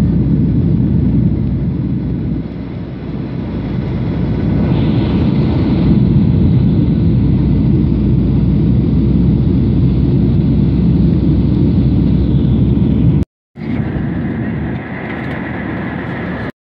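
Steady cabin noise of a Boeing 737-800 in flight, its CFM56 engines and the airflow heard from a window seat. About 13 seconds in it cuts out for a moment, then comes back a little quieter with a faint high tone over it.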